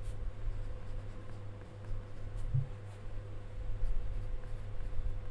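Pencil scratching on a paper card as words are written by hand, over a steady low hum.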